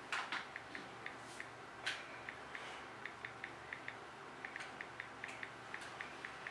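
Faint, regular clicking from a toy fishing rod's reel being wound, about three to four clicks a second, with a brief pause partway through and a slightly louder click about two seconds in.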